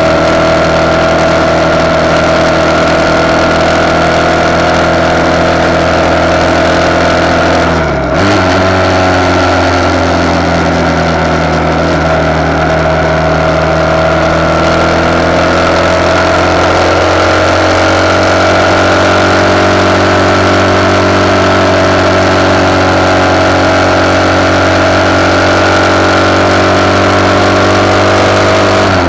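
RPS Hawk 250's single-cylinder engine running under way through a de-catted CRF230 exhaust, heard from a handlebar-mounted camera. About eight seconds in the engine note dips briefly and jumps to a new pitch, then rises gradually a few seconds later.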